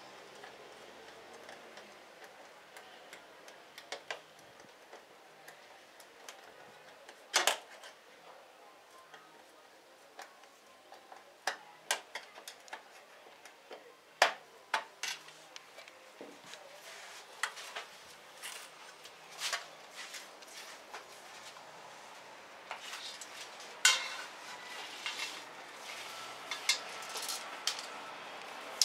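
Aluminium window-frame profiles and hand tools clinking and tapping at irregular intervals as a glass pane is fitted into the frame, with a few louder knocks among lighter ticks.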